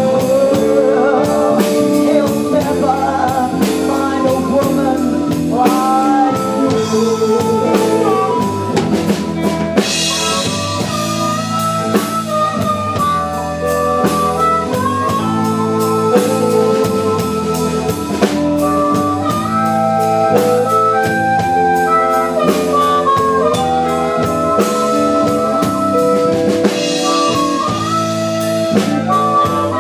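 A live blues band playing an instrumental passage: drum kit keeping the beat under electric guitars and keyboard, with a held, stepping lead line on top.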